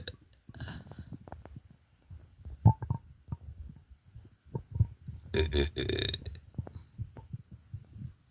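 A person's deep burp about five seconds in, lasting about a second, with a shorter burp just after the start. Faint low stomach gurgles and clicks come in between.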